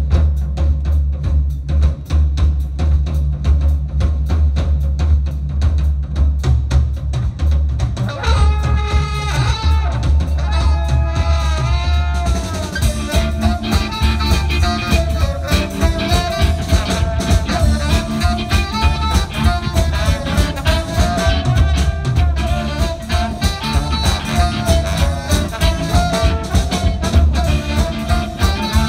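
Live band playing an upbeat instrumental opening: a drum kit and bass groove, then a horn section of saxophones, trombone and trumpet coming in about eight seconds in. The full band plays from about twelve seconds on.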